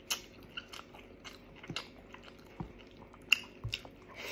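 Close-miked eating by hand: wet lip smacks, biting and chewing on meat off the bone and rice, in irregular short clicks, with one sharper smack about three seconds in.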